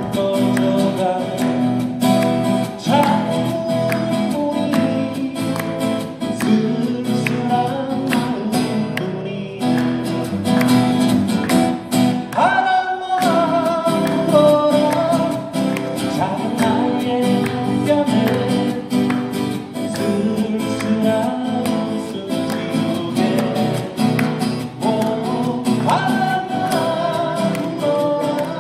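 Acoustic guitars strummed and picked, playing a folk song live.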